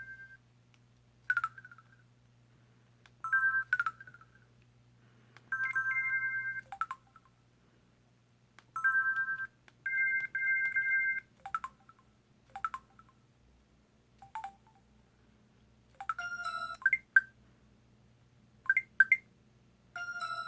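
Samsung Anycall SPH-W3000 mobile phone playing a run of short electronic alert and effect tones one after another. There are about a dozen brief beeps and chirps, some of them two or three pitches at once, separated by pauses of a second or two.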